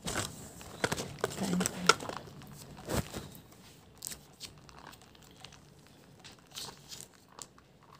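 Plastic packaging crinkling and tearing in the hands, with sharp plastic clicks. It is busiest in the first three seconds, then only a few light clicks.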